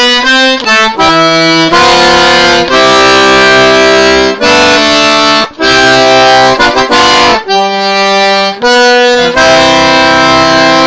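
Handmade Horace J. Thibodeaux "Diamond" single-row Cajun button accordion in the key of C being played by a beginner: loud held notes and chords, each lasting about a second, with short breaks between them.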